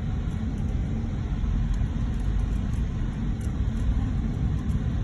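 Steady low rumble of a car's tyres and engine heard from inside the cabin while driving on a snow-packed road.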